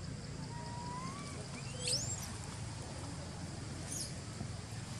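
Birds calling over a steady background hum: a thin whistle rising in pitch early on, then a louder whistle that sweeps quickly up and falls away just before two seconds in, and a brief high chirp about four seconds in.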